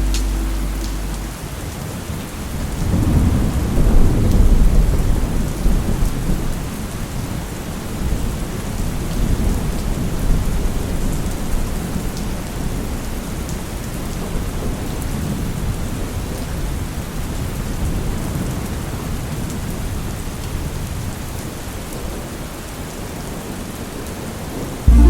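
Steady rain falling, with rolling thunder; the loudest rumble swells about three to five seconds in, then a weaker one follows.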